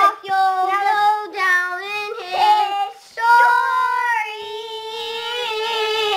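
A young child singing, with no clear words: a few short notes, then one long held note from about halfway through.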